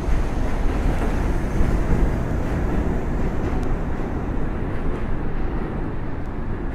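New York City subway train pulling out of the station. A steady rumble of wheels on the rails slowly fades as the rear car moves off down the track.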